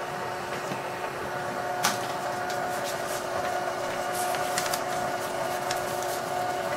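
Sharp XE-A213 cash register's thermal printer running steadily as it prints the electronic journal (EJ) report, a steady motor whine with faint ticks, the sign of the journal being printed out and cleared.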